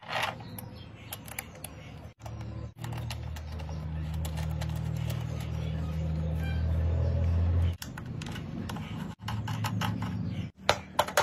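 Clicks and taps of plastic parts being handled as a screw and knob are fitted through a light fixture's hinged plastic bracket, over a low steady rumble that stops and starts abruptly at several points. A quick run of sharp clicks comes near the end.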